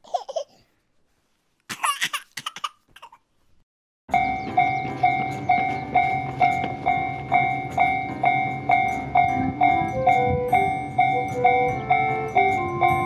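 A few short vocal sounds. Then, from about four seconds in, a Japanese railway level-crossing alarm rings steadily, about two strokes a second.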